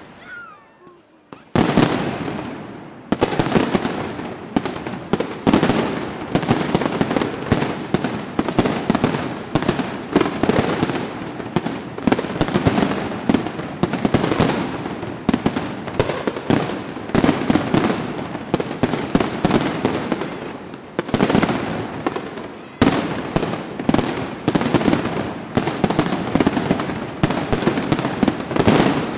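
Fireworks going off in a dense, continuous barrage of sharp bangs, several a second. The barrage starts about a second and a half in and eases briefly about two-thirds of the way through.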